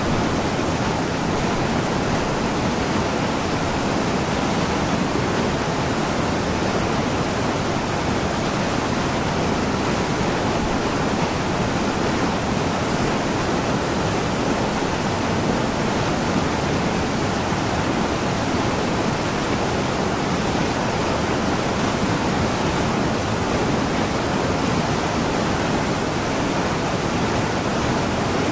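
Small waterfall and mountain stream rushing over boulders: a steady, unbroken rush of water.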